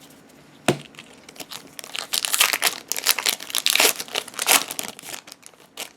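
Foil wrapper of a Pokémon card booster pack crinkling and being torn open, with a sharp crackle about a second in and a dense run of crinkling in the middle.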